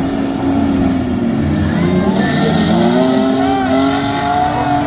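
Off-road 4x4 race vehicles' engines revving on a dirt hill climb, the pitch rising and falling. A burst of hiss comes about two seconds in.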